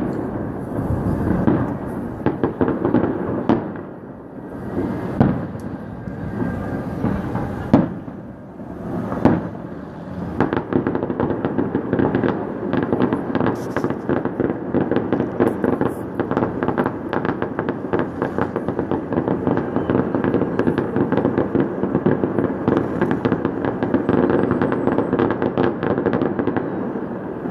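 Fireworks salute going off: separate booming shell bursts with pauses between them for about the first ten seconds, then a dense, continuous crackle of many rapid pops.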